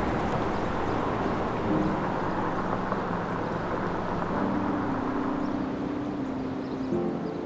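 Soft background music: low held chords that change every couple of seconds over a steady wash of noise.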